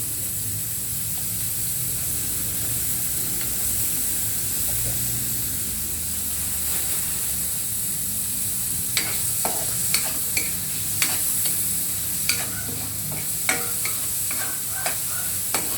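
Food sizzling in a frying pan, a torta (Filipino omelette) being heated. From about nine seconds in come sharp clicks of a utensil knocking and scraping against the pan.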